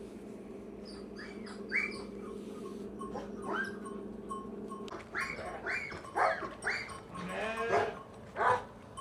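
Lambs bleating: about ten short, high calls in quick succession, with one longer wavering bleat near the end. A low steady hum stops about halfway through.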